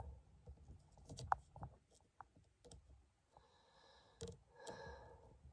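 Faint, irregular light clicks and taps of a circuit test light's probe and hand against the plastic fuses and fuse block, with a little rustling of wires.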